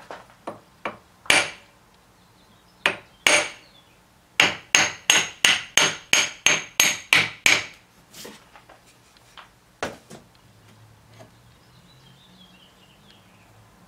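Ball-peen hammer striking a rough cast-iron cylinder head casting, driving it onto transfer screws so their points dimple the iron to mark the hole centres. A few spaced blows, then a quick run of about ten at roughly three a second, then a couple of lighter taps before it stops.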